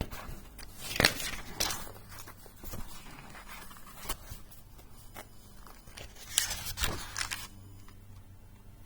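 Old paper handbooks being handled: pages rustling and books knocking and sliding, with several sharp rustles about a second apart early on and again near the middle.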